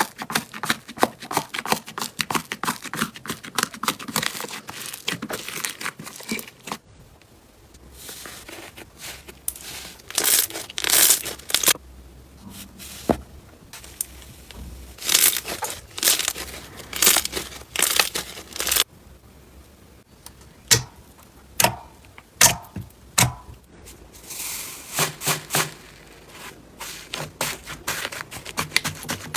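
Slime being squeezed, stretched and poked by hand: runs of quick crackling and popping clicks with wet squishes, broken by short quieter lulls.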